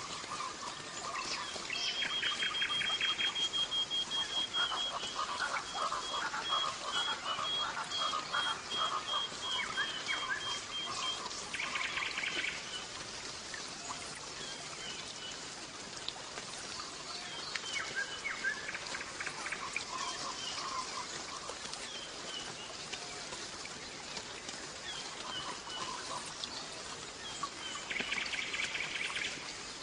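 European goldfinch of the large 'major' form singing: a twittering song with a long run of rapid repeated high notes in the first third, buzzy trills in between, and quieter scattered chirps later, with a buzzy trill again near the end.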